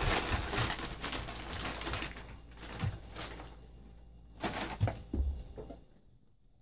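White plastic mailer bag rustling and crinkling as it is handled and opened, busiest in the first two seconds, then in a few shorter rustles.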